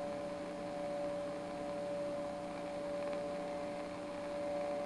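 Steady hiss with a mains hum from a vintage tube CB radio receiver, with no one transmitting on the channel.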